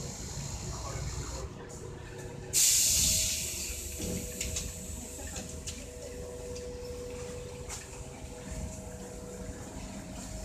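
Inside a Škoda 15Tr trolleybus cabin: a sudden loud hiss of released compressed air about two and a half seconds in, dying away within a second as the trolleybus halts at a stop and its door opens. A few light clicks follow, over a steady low rumble and a faint steady whine.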